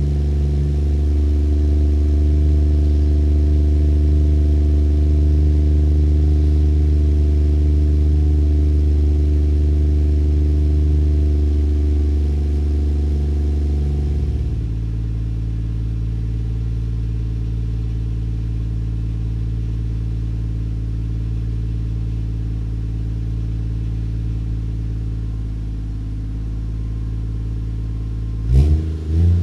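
Toyota 1JZ-GTE 2.5-litre straight-six with a single turbo, running through a 5ZIGEN exhaust at a steady raised idle that drops to a lower, quieter idle about halfway through. Near the end the engine is blipped once, the note rising quickly and falling back.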